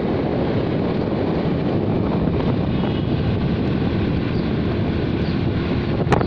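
Steady rushing wind on the microphone of a moving vehicle, with the vehicle's running and road noise underneath. A couple of sharp knocks come right at the end.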